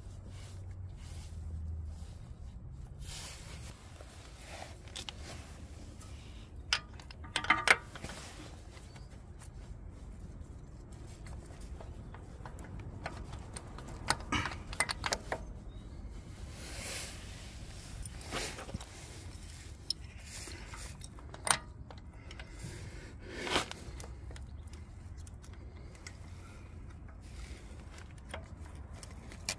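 Hand-handling noises of a motorcycle oil pump being fitted against the engine's crankcase: scattered light metal clicks, taps and scrapes. A cluster of sharper knocks comes about seven seconds in and single sharper ones come later. A steady low rumble sits underneath.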